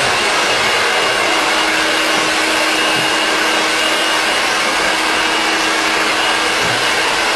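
Hand-held hair dryer running steadily while blow-drying hair: an even rush of air with a faint steady hum under it.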